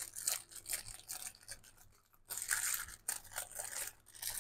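Paper and packaging being handled: short rustles, scrapes and crinkles, with a brief pause about two seconds in and a louder crinkling stretch right after.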